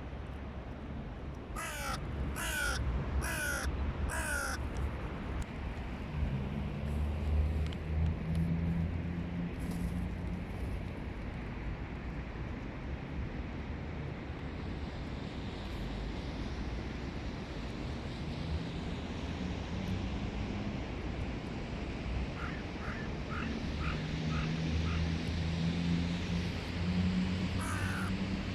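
Hooded crows cawing: four harsh caws in quick succession a couple of seconds in, then a run of about six short, clipped calls later on, and more caws at the very end. A low steady drone comes and goes underneath, twice.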